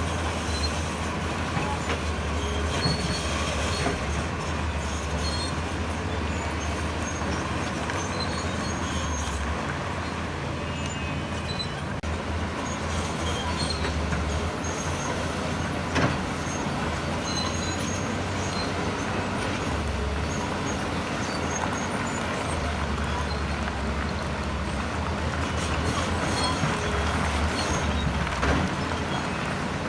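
A tracked heavy machine's diesel engine running steadily while its steel crawler tracks squeak and clank. There is a single sharp knock about halfway through.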